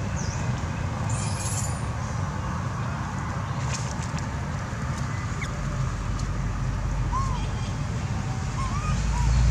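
Steady outdoor background rumble, deepening a little past the middle, with a few short, faint chirps near the end.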